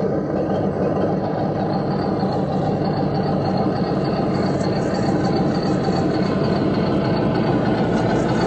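Steady, even engine-like idling rumble with no revs or changes.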